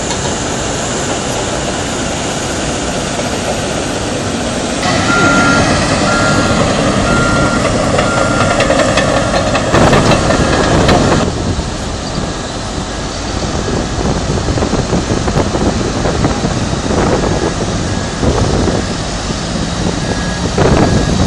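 Diesel engines of heavy earthmoving machines (articulated dump trucks, wheel loaders and a bulldozer) running on sand. A reversing alarm beeps a little under twice a second from about five seconds in, and near the end a second alarm beeps about once a second.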